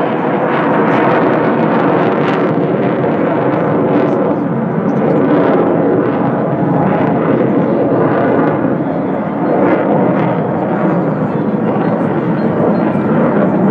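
Twin turbofan engines of a Sukhoi T-50 (PAK FA, Su-57 prototype) fighter jet flying aerobatics overhead, a loud steady jet noise that swells and eases slightly as it manoeuvres.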